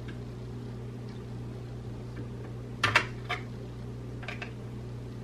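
A few short, sharp clicks from the parts of a Draco NAK-9 9mm pistol being handled and fitted. The loudest is a quick pair about three seconds in, followed by single clicks shortly after and about a second later, over a steady low hum.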